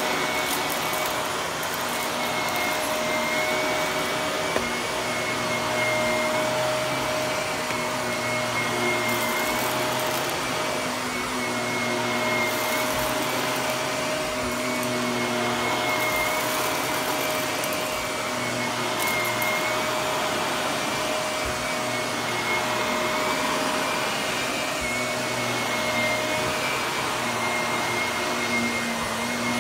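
Shark Navigator upright vacuum cleaner running on carpet: a steady motor rush with a high whine, swelling and easing slightly as it is pushed back and forth.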